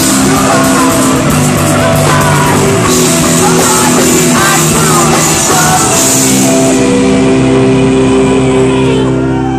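Live rock band playing loud: distorted electric guitars, bass and drums with sung vocals. About seven seconds in, the drums and cymbals stop and the guitars hold a ringing chord.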